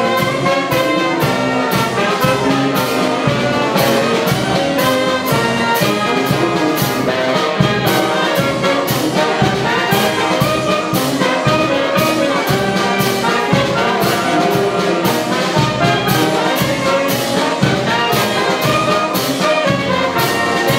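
Community wind band (filarmônica) of clarinets, saxophones and tuba playing a municipal anthem, with a steady beat.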